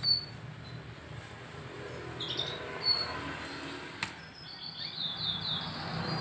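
Young canary, about three months old, giving a few short high chirps, then a quick run of falling notes, the twittering of a bird still learning its song. A single sharp click about four seconds in.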